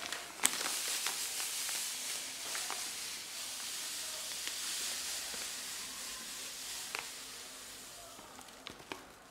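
Granulated sugar pouring in a steady stream into a glass bowl: a continuous hiss that thins out and dies away near the end. A sharp tick about half a second in.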